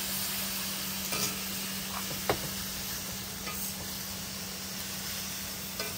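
Food sizzling in hot oil in a pan while it is stirred, with a few clicks of the utensil against the pan about one and two seconds in.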